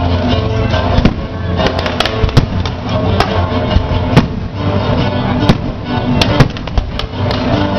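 Fireworks exploding in irregular sharp bangs, about one or two a second, over music with sustained notes playing throughout.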